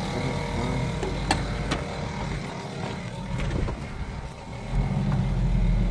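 A motor running with a steady low hum that fades somewhat in the middle and grows again near the end, with two sharp clicks a little over a second in.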